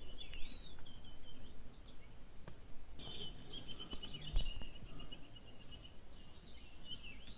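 Birds chirping and calling over a steady high-pitched insect drone, with a fast trill in the middle and a single soft thump about four and a half seconds in.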